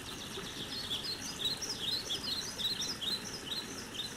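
Forest ambience sound effect: several birds chirping in short, quick swooping calls over a steady low hiss, busiest through the middle.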